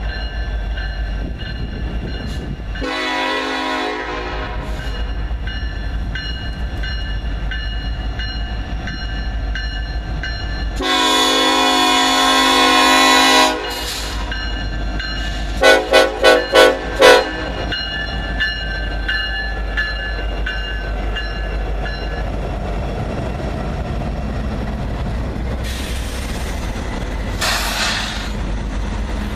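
Norfolk Southern SD70ACe diesel locomotive's horn played as a little horn show: a short blast about three seconds in, a long blast around eleven seconds, then five quick toots, over the steady rumble of a slow-moving intermodal train.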